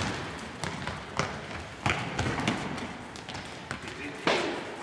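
Football being kicked and bouncing on a sports hall floor: about half a dozen sharp thuds, each ringing out in the hall's echo, with players' running feet.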